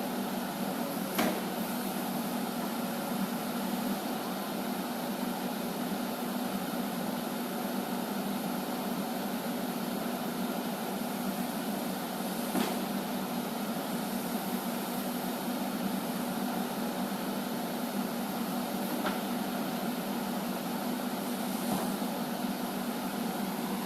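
A few separate sharp bangs, four spaced several seconds apart, heard over a steady low hum: the loud night-time knocking that carries across the park.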